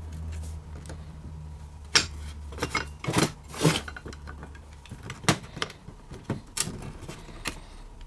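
Small flat screwdriver prying at the casing of a coin-operated shopping trolley lock: scattered sharp metallic clicks and scrapes, several in quick succession in the middle, as the stuck housing resists coming apart.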